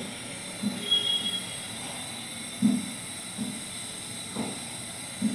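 Pot of herbal decoction (water with ajwain, bay leaf, tulsi and ginger) boiling: a steady hiss with short low bubbling bumps about once a second.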